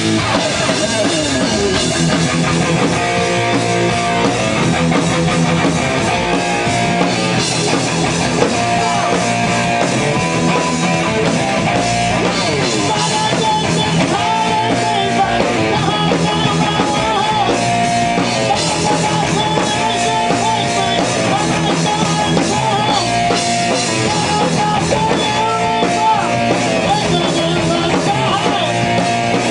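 Rock band playing loudly with guitar and drum kit, a short melodic figure repeating every couple of seconds.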